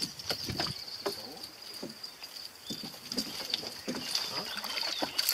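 Water lapping and sloshing against the side of a small wooden boat, with small irregular splashes from a hooked pike being played at the surface close by, over a steady high-pitched whine.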